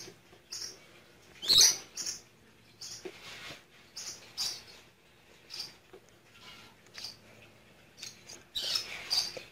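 A small animal's short, high-pitched chirps, repeated every half second to a second, loudest about a second and a half in and again near the end.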